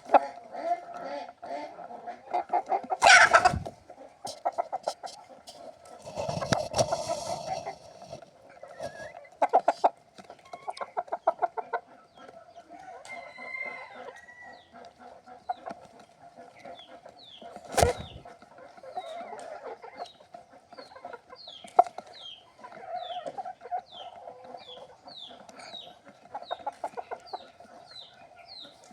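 Chickens clucking in quick runs of repeated clucks, with a few louder sudden sounds. Short, high, falling chirps repeat through the second half.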